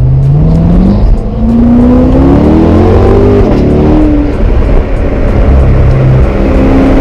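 Chevrolet C7 Corvette Stingray's 6.2-litre V8 accelerating, its note rising and dropping back at upshifts about one and three and a half seconds in, then settling to a steady cruise. Wind noise over the open top runs underneath.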